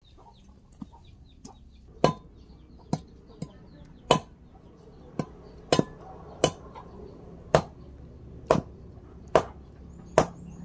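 Machete chopping on a wooden log: about a dozen sharp, separate chops, roughly one a second at an uneven pace.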